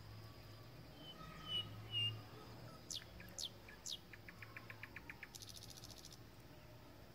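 Faint birds chirping: a few short high notes, then three quick falling whistles, then a fast rattling trill, over a low steady hum.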